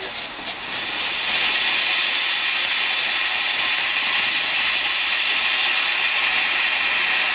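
A lit garden firework spraying sparks with a loud, steady hiss that builds up over about the first second and then holds level, the continuous jet of a fountain-type firework.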